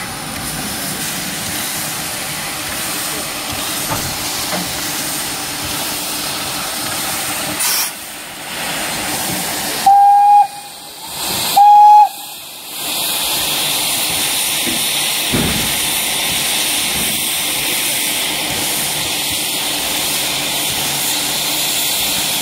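Steam hissing steadily from an LB&SCR E4 0-6-2 tank locomotive, No. 473. About ten seconds in its whistle gives two short toots, and after them a louder, steady hiss of escaping steam follows.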